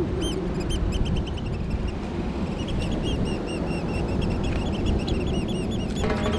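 A bird calling in a rapid series of short, high chirps over a steady low rushing noise.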